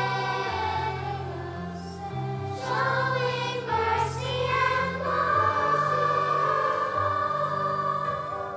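Children's choir singing a song over instrumental accompaniment, holding one long note in the second half.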